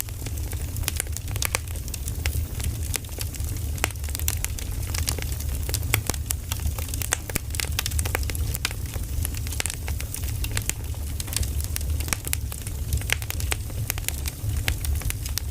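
Burning firewood crackling and popping in a dense, irregular stream of sharp snaps over a low steady rumble.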